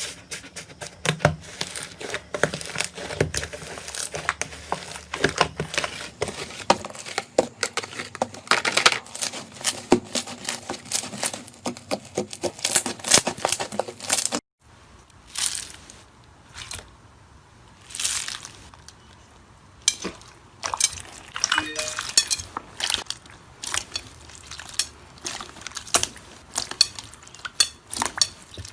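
Slime being squeezed and poked by hand: a dense run of crackling, popping clicks that stops abruptly about halfway, followed by sparser, separate pops and crackles.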